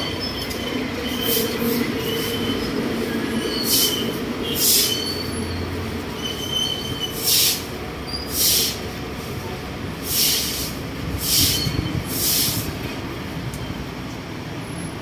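Short swishing strokes of a broom and a scrubbing pad over a wet stamped-concrete floor, about ten at uneven intervals, over a steady low rumble.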